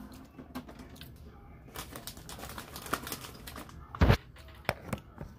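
Handling noise from a phone being moved about: scattered light clicks and rustles, with one dull thump about four seconds in.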